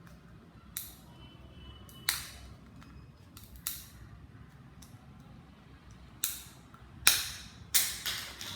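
Plastic locking clips of a Jabra headphone ear-cup cover snapping and clicking as the cover is pried open: a run of sharp clicks, about seven, the loudest near the end as the cover comes free.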